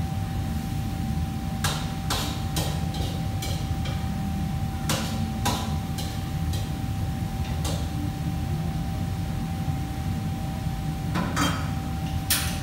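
Kitchen clatter: scattered sharp knocks and clinks, irregular and in small clusters, over a steady low rumble and a faint steady whine.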